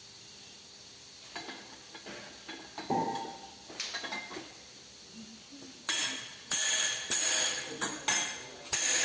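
Steel tools clanking and scraping against the pressing-roller assembly of a flat die wood pellet mill. There are a few light clinks and one ringing clank about three seconds in. From about six seconds comes a run of louder, harsher metal-on-metal clanks and scrapes.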